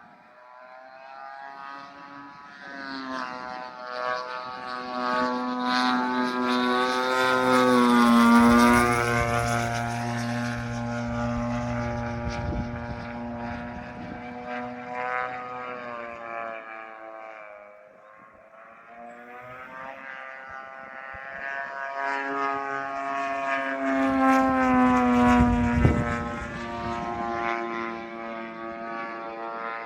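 Propeller engine of an Extra NG aerobatic plane making two passes. Its drone swells to a peak about eight seconds in, fades around eighteen seconds, then swells again near twenty-five seconds, dropping slightly in pitch as it goes by each time.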